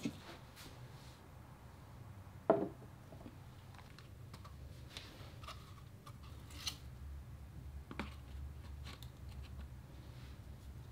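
Dried plant stems being handled and arranged in a glass vase: light rustling and scattered small clicks and taps, with one sharper knock about two and a half seconds in, over a faint steady low hum.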